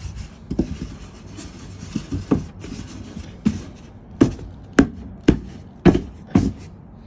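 A series of about ten sharp knocks at irregular intervals, the loudest coming in the second half.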